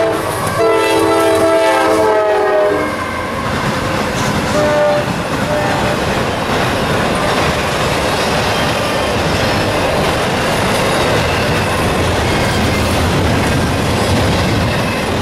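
Diesel freight locomotive's air horn sounding a chord, with a short break just after the start, cutting off about three seconds in. Then the steady rumble of an intermodal freight train's wheels on the rails as the trailer-carrying cars pass.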